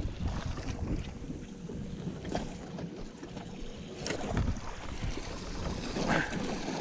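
Wind buffeting the microphone over water lapping at a small boat, with a couple of sharp knocks and, about six seconds in, a splash of a hooked fish thrashing in a hoop net.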